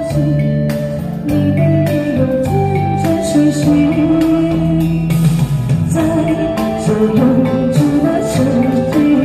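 A woman singing a Chinese pop ballad through a handheld microphone and small amplifier, over a backing track of guitar and drums with a steady beat.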